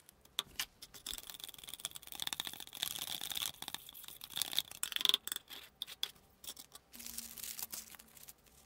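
A tool stirring a white mix in a thin clear plastic cup, scraping and clicking against the cup wall with a steady high squeak. Near the end, a short rustle of thin cork and paper sheets being handled.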